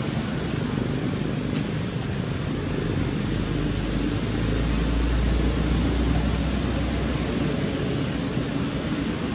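Steady low rumble of outdoor background noise, with five short, high chirps spread through it.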